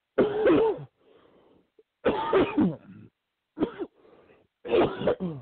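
A man coughing four times in a short fit, with a breath drawn between the coughs.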